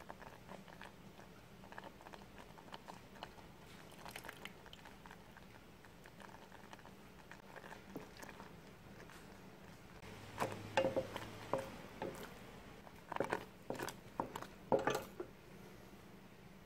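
Thick mango jam cooking in an enamel saucepan and being stirred with a wooden spatula: faint scattered pops and clicks at first, then louder clusters of scraping and clicking from about ten seconds in, in three bunches.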